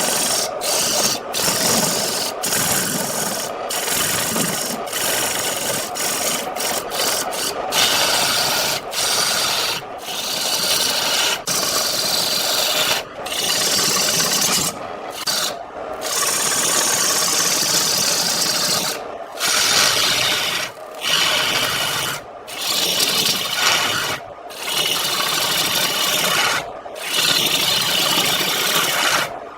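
A turning tool scraping against wood spinning on a lathe: a steady rasping noise, broken again and again by short, abrupt gaps.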